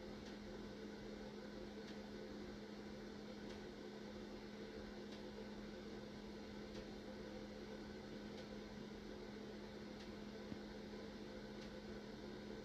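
Faint steady electrical hum with a constant hiss, and a faint tick roughly every second and a half.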